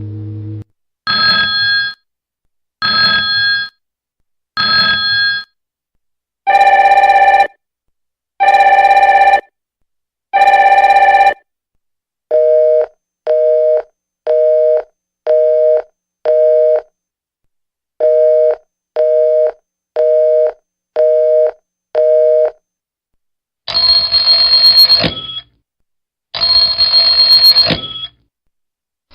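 A run of telephone ringing sound effects in several different ring patterns: three short rings, then three longer, lower rings, then two sets of five quick beeps, then two long rings near the end, each separated by silence.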